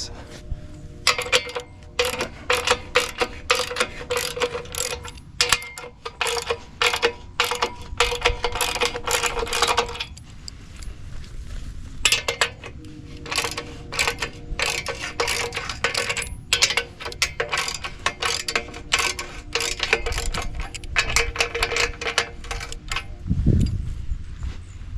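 Socket ratchet wrench with a 15/16-inch socket clicking in long runs of rapid strokes, with short pauses, as bolts on a steel loader quick-attach adapter are loosened. A low thud sounds near the end.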